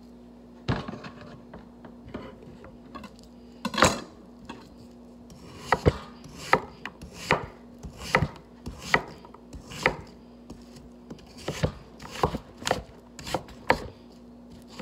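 Knife chopping zucchini on a cutting board: a few separate cuts at first, then a steady run of about one or two cuts a second through the second half.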